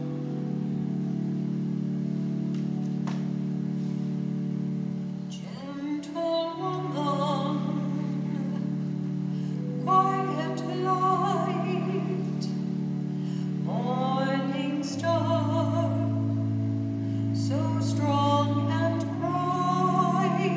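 Offertory hymn: held organ chords, with a solo singer entering about five seconds in and singing four phrases. A low bass note joins in the middle of the third phrase.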